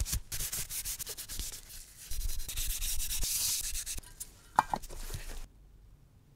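Paper towel rubbing hard and fast over a freshly waxed wooden razor case, buffing off the excess wax with a dry scrubbing sound. About four and a half seconds in, a short metallic clink and ring as the lid goes onto the round metal wax tin, and the sound cuts off suddenly soon after.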